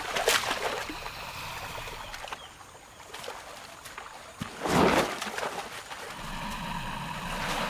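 Water splashing and sloshing as a jaguar struggles with a caiman it has seized in the shallows, with two louder splashes, one just after the start and one about five seconds in.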